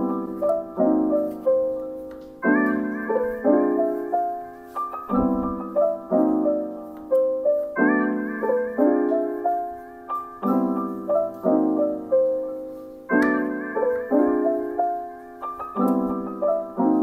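Background piano music: soft chords with a simple melody over them. A new chord is struck about every two and a half seconds, and each one fades away.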